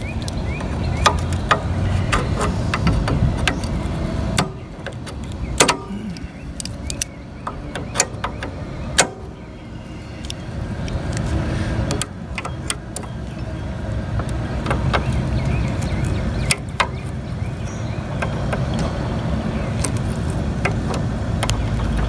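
Pliers clicking and scraping against a metal pin and the Snapper mower's steel shift-lever bracket, giving irregular sharp metal clicks over a steady low rumble.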